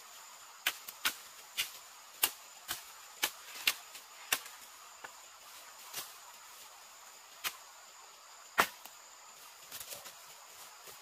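About a dozen sharp, irregular knocks, like a tool striking wood or bamboo. They come about two a second for the first four seconds, then thin out, with the loudest a little past halfway. Under them runs a steady high insect trill.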